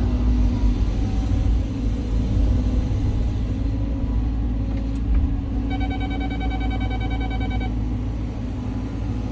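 Caterpillar 323 hydraulic excavator's diesel engine running under steady load while it digs, a constant low rumble. About halfway through, a rapid electronic beeping sounds for about two seconds.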